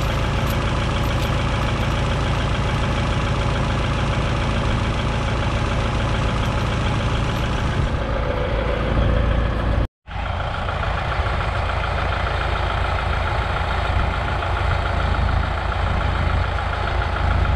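Kubota farm tractor's diesel engine running steadily, heard close up. The sound cuts out for an instant about ten seconds in, then a tractor engine runs on with a slightly different tone.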